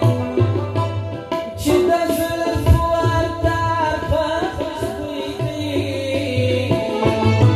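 Live Pashto folk song: a man sings in a wavering, ornamented line over harmonium and keyboard, with a hand-drum beat underneath.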